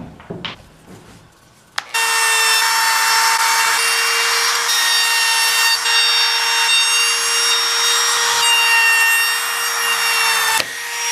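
RIDGID compact trim router switched on about two seconds in, running with a steady high whine as its chamfer bit cuts along the edges of a cedar board. The cutting noise drops away shortly before the end while the motor keeps spinning.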